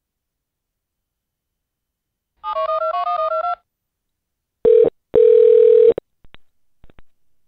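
Telephone touch-tone (DTMF) dialing: a quick string of beeps as a number is keyed in. About two seconds later the phone line's ring tone sounds, first a short burst and then a longer one, followed by a few faint clicks.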